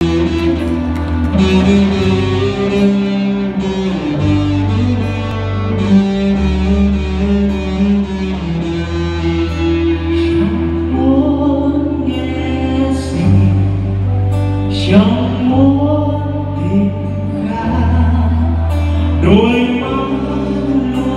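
A live band amplified through a hall PA: guitars playing chords over a low bass line, with a singer's voice joining about ten seconds in.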